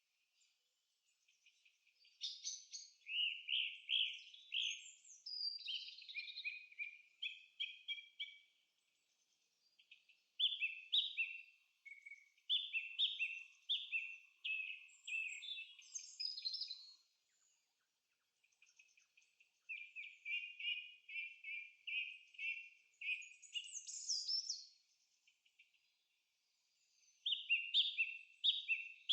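Birds singing in four bouts of a few seconds each, separated by short pauses. Each bout is a quick series of repeated high notes, with thinner, higher sliding whistles over some of them.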